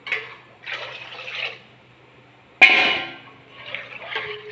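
Buttermilk-and-gram-flour batter pouring and splashing from one steel pot into another. About two and a half seconds in, a loud metallic clang of steel cookware rings briefly. Near the end comes the sound of the mixture being stirred in the steel pot with a spoon.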